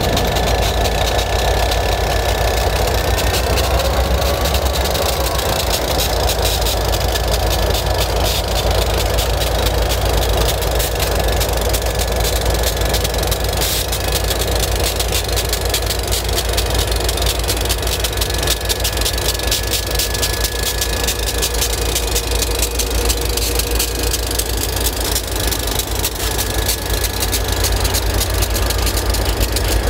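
Freight train rolling past: steel wheels clicking and clattering over the rails over a steady low rumble, with faint thin squeals, and a diesel locomotive's engine running as it comes by near the end.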